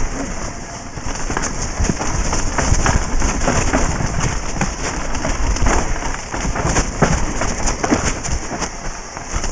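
Downhill mountain bike descending a bumpy dirt forest trail, heard from a helmet-mounted camera: a constant clatter of sharp knocks and rattles as the bike hits roots and bumps, over steady wind rumble on the microphone.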